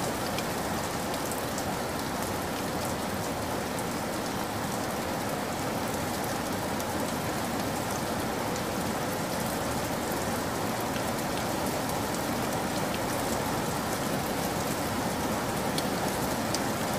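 Shallow stream flowing over gravel and stones: a steady babbling rush of water, full of small splashes and trickles.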